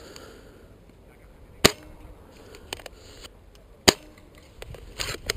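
Airsoft replicas firing single shots: two sharp, loud cracks about two seconds apart, with several fainter shots in between and near the end.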